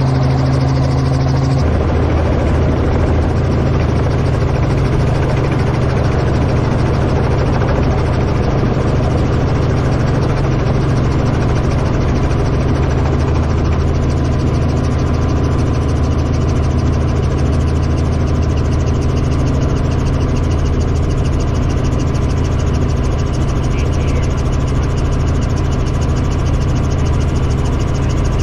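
Helicopter running steadily, a loud constant engine sound; a higher steady tone drops out about two seconds in.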